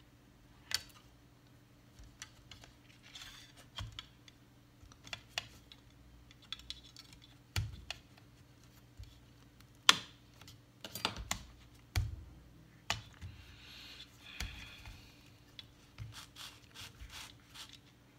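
A MacBook Pro logic board and its cables being handled and fitted back into the laptop's aluminium case: scattered light clicks and taps, a few sharper knocks, the sharpest about ten seconds in, and short stretches of scraping.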